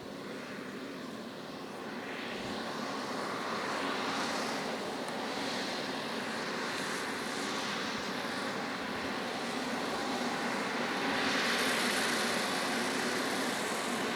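John Deere 6R 185 tractor's six-cylinder diesel engine working under load as it pulls a six-furrow plough through the soil, a steady drone that grows louder about two seconds in and again near the end as the tractor comes closer.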